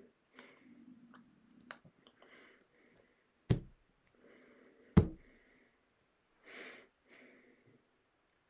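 Two sharp thumps about a second and a half apart, the second the louder, with only faint sounds around them.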